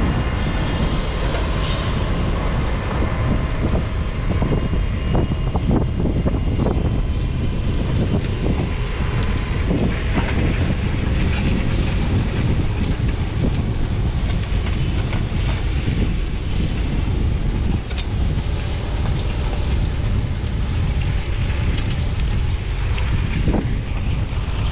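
McCormick X7.624's 6.7-litre six-cylinder diesel working steadily under load pulling a five-furrow reversible plough, mixed with wind rumble on the microphone. Scattered short knocks and scrapes come from soil and clods against the plough bodies.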